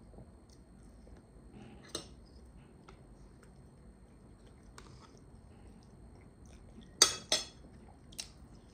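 Faint chewing, broken by a few sharp clinks of a spoon against a dish and a yogurt tub, the loudest two close together about seven seconds in.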